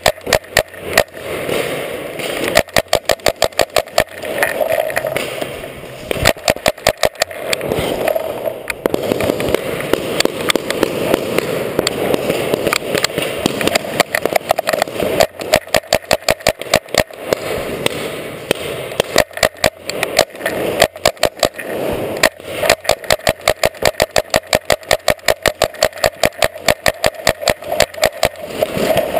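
Paintball markers firing in repeated rapid volleys of several shots a second, the sharp pops echoing in a large hall, with short pauses between strings of shots.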